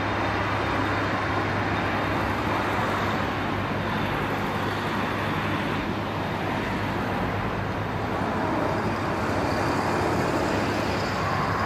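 Airbus Beluga's twin General Electric CF6-80C2 turbofans running steadily at low taxi power, an even rushing jet noise over a low hum.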